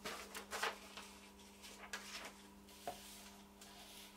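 Faint rustling and soft scrapes of a sheet of old paper endpaper being handled and laid down on a book board, a few light taps among them, over a low steady hum.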